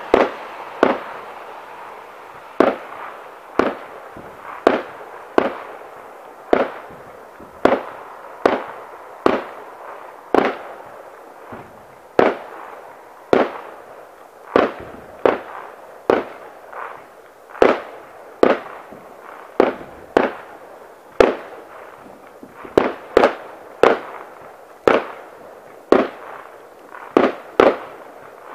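Fireworks going off in a continuous barrage, sharp bangs about once a second at uneven spacing, each with a short echoing tail, over a steady rushing noise between the bursts.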